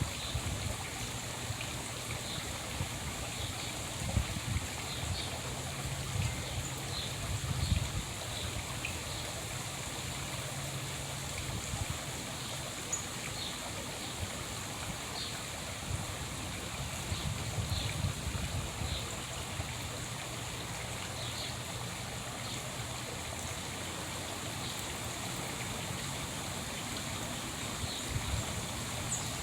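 Outdoor ambience: a steady rushing hiss with faint, short bird chirps scattered throughout and a few brief low rumbles.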